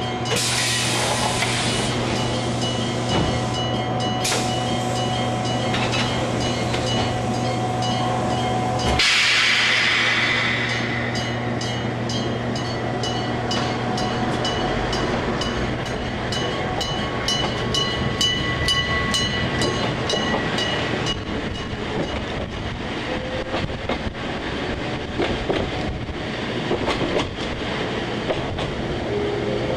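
Kumamoto Electric Railway 5000-series electric train heard from inside as it pulls away from a station. It starts with a steady hum, and a loud hiss of air comes about nine seconds in. Then the wheels clatter rhythmically over the rail joints as it picks up speed, and the hum drops away about two-thirds of the way through.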